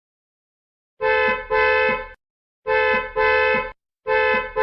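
Car horn honking in three double beeps, the first starting about a second in, each pair of blasts a little over a second long.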